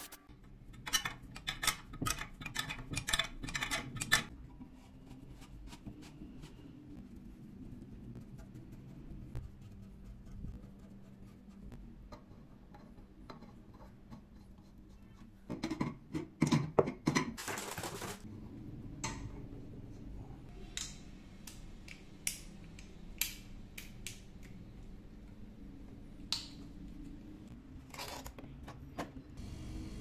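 Metal clinks and taps from a wrench and steel and brass air fittings being handled and tightened, in scattered clusters, busiest about a second in and again just past the middle, where there is also a short rattling burst.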